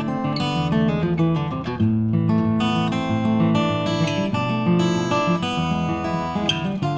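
Background instrumental music with changing chords over a bass line.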